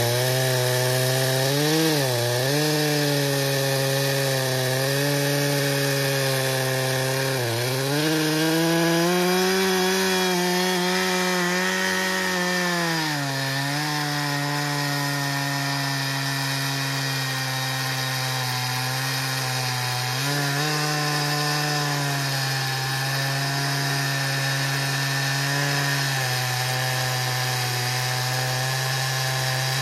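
Echo CS-590 TimberWolf two-stroke chainsaw running under load while its 24-inch bar cuts through a large poplar log. The engine note sags and recovers several times in the first half, rises for a few seconds, then settles and holds steady through the rest of the cut.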